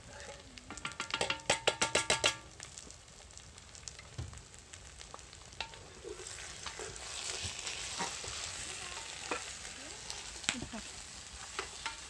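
A wooden spoon scrapes tomato paste out of a tin can in a quick run of about ten strokes, the can ringing. Then the spoon stirs the bones and tomato paste searing in a cast-iron pot, with a steady sizzle and occasional knocks against the pot.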